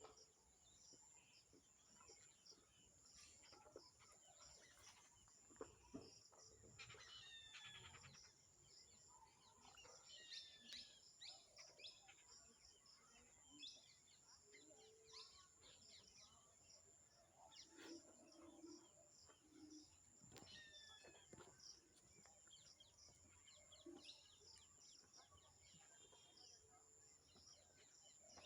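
Faint bird chirping: many short, quick falling chirps scattered throughout, over a steady high-pitched whine.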